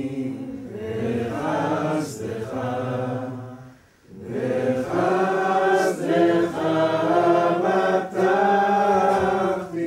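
A group of voices singing a slow devotional song together in long, held notes; the words are "But as for me, in Thy mercy do I trust." The singing breaks off briefly about four seconds in between two phrases.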